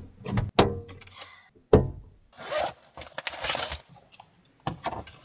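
Camper van side window being opened: a couple of sharp clicks and a knock, then two rasping, scraping slides about halfway through, and a few light knocks near the end.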